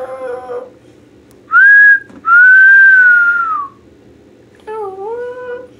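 A person whistling by mouth: a short note, then a longer held note that falls off in pitch at its end. A child's high voice sounds briefly at the start and again near the end.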